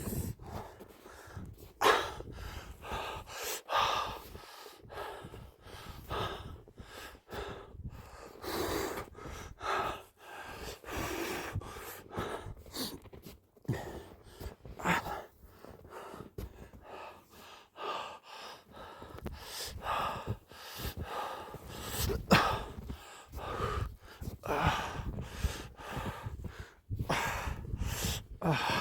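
A person breathing hard and gasping with effort, in irregular loud breaths about a second apart.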